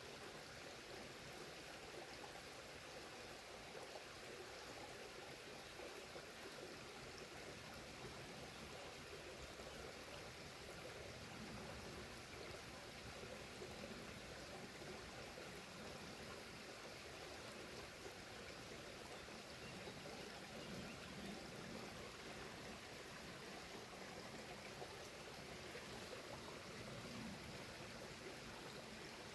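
Waterfall and stream water running steadily: an even rush of falling and flowing water.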